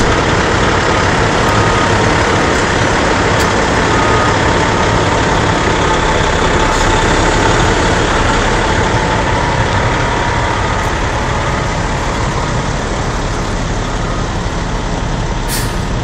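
Heavy Doosan forklift's engine running steadily under load as it carries a streetcar body, with a short hiss near the end.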